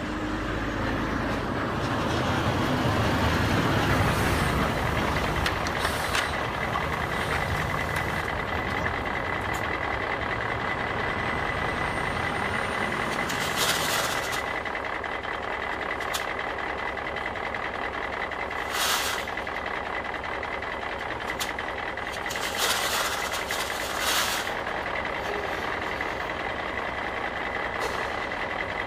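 Steady truck-like engine noise with a continuous high tone, heavier in the low end for the first third, and several short clattering bursts of pebbles tipped from a toy loader bucket into a plastic dump truck tipper, the first about halfway through and a cluster near the end.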